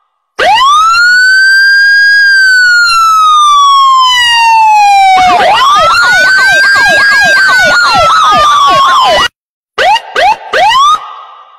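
Electronic siren: a long wail that rises and then slowly falls, followed by a second wail with fast yelps laid over it, which cuts off suddenly about nine seconds in. After a short gap come three quick rising whoops.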